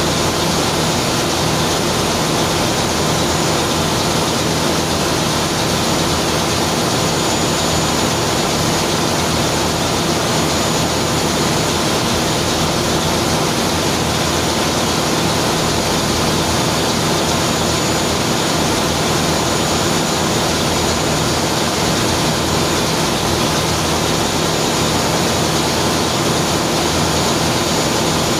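Ship's main diesel engine running steadily in the engine room: a loud, unbroken machinery din that does not change.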